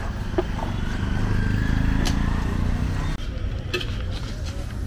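Street traffic: a motor vehicle's engine running close by, swelling to its loudest in the middle and easing off, over a steady low rumble, with a few sharp clicks.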